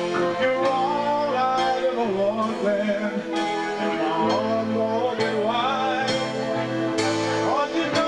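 Live dance band playing a song: a sung melody over electric guitars, a bass line and a drum kit keeping a steady beat.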